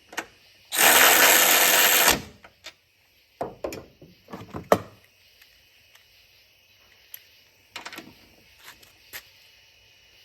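DeWalt DCF500 12V cordless ratchet running for about a second and a half as it drives a strut bolt down, stopping abruptly, followed by a few clicks and knocks of wrench work on the bolt.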